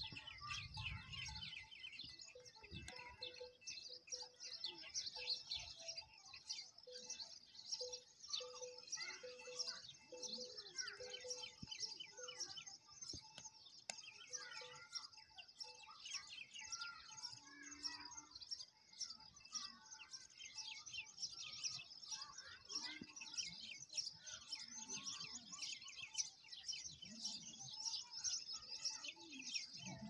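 Many small bells on a walking herd of goats, jingling and clinking continuously.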